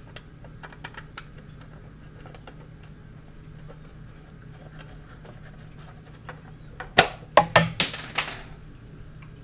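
Light clicks and taps of screws being put back into the band saw's plastic side panel by hand, followed about seven seconds in by a quick run of half a dozen louder sharp clacks.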